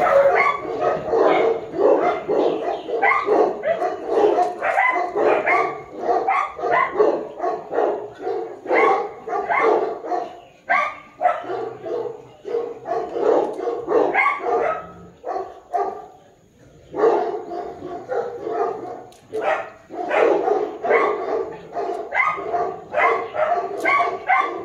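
A dog barking rapidly and over and over, about three barks a second, with a brief break about two-thirds of the way through.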